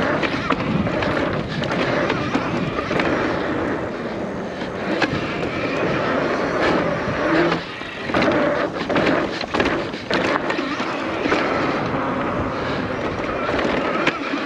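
Fat-tyre electric mountain bike ridden over a dirt trail: a steady rush of tyre and wind noise, broken again and again by knocks and rattles as it goes over bumps.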